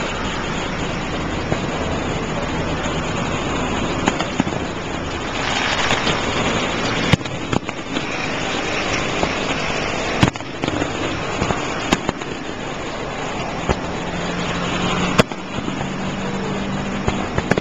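Fireworks display: aerial shells bursting, about five sharp bangs spaced a few seconds apart over a steady background din, with a low hum joining near the end.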